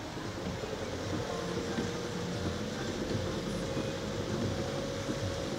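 Car driving on a rain-flooded road, heard from inside the cabin: a steady low rumble of engine and tyres through standing water, with a faint whine that rises slowly in pitch.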